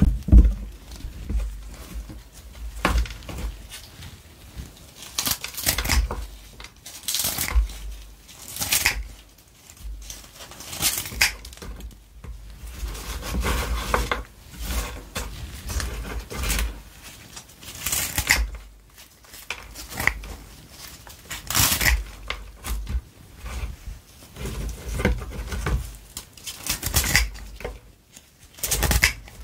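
Kitchen scissors cutting through crispy batter-fried chili peppers in irregular crunchy snips, with crisp batter pieces crackling and falling onto a wooden cutting board.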